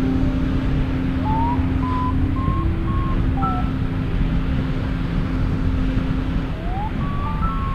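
Wind rushing over the microphone of a paraglider in flight, heard as a steady low rumble. Over it plays an ambient synth track: a held drone with slow held notes stepping and gliding above it.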